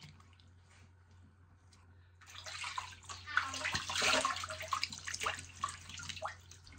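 Water running and splashing, with small clatters, starting about two seconds in and easing off near the end; it splashes enough to soak clothing.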